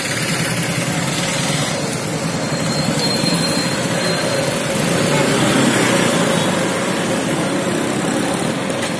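Busy street traffic: motorcycle and scooter engines running as they ride past close by, over a steady wash of road noise.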